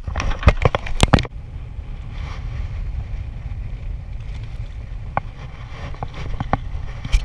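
Steady low rumble of wind and water on a small boat at sea, with a burst of sharp knocks in the first second and a few faint ticks later on.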